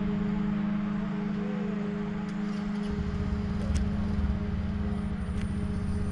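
Steady drone of a small engine, holding one pitch throughout; a low rumble joins it about halfway through.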